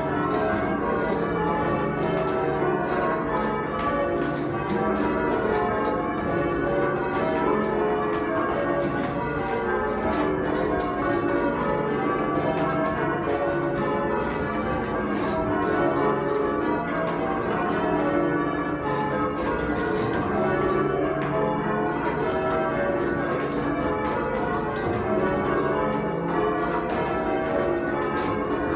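Change ringing on a ring of eight church bells with a 25 cwt tenor in C#: the bells strike one after another in an even, unbroken rhythm.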